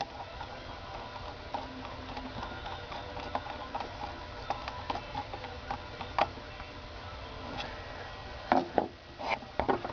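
Light metallic clicks and ticks of a small flat-bladed screwdriver and the pilot jet as the jet is screwed into a Keihin PWK carburetor body, with a few sharper clicks near the end.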